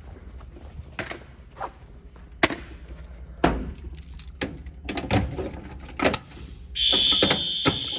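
Scattered knocks and clicks, then about seven seconds in a fire alarm sounder comes on with a loud, steady, high-pitched electronic tone.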